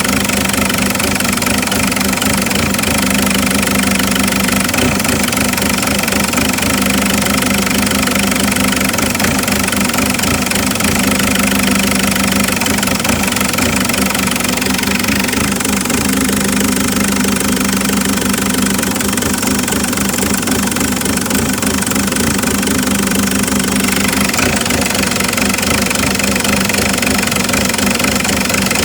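Isuzu 4JX1 3.0-litre four-cylinder turbodiesel idling at a steady pitch, the rough idle being diagnosed.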